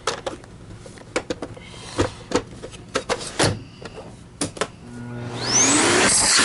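Plastic clicks and knocks as the lid of a Miele C3 canister vacuum is shut and handled. About five seconds in, its motor is switched on and spins up with a rising whine into a loud, steady run.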